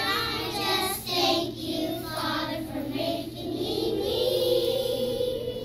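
A class of young children singing a song together in unison, ending on one long held note.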